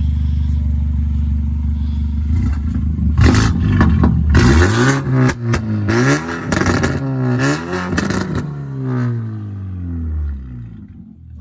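BMW 428i four-cylinder turbo engine with stage 2 tune, catless downpipe and full exhaust, idling steadily and then revved hard several times from about three seconds in, the pitch climbing and dropping with each blip before settling back down near the end.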